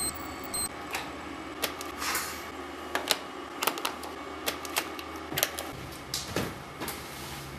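A short high electronic beep, then scattered sharp clicks and ticks from camera gear being handled: buttons pressed on a flash unit and a lens being turned.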